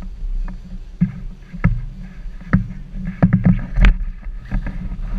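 Low wind rumble and handling noise on a pole-held action camera, with irregular knocks and rustles. The sharpest knock comes about four seconds in.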